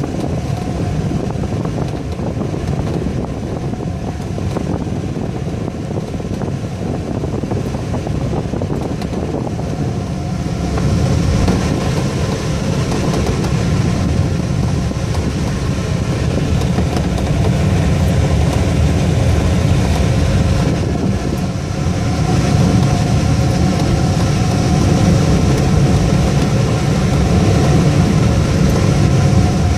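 Airflow rushing over a glider's canopy, heard from inside the cockpit on the landing approach: a steady rush with a few faint steady tones in it, growing louder about a third of the way in.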